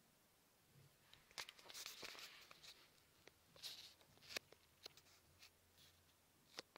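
Scattered light clicks, taps and short rustles at low level, with a cluster of rustling about two seconds in and sharp ticks later on.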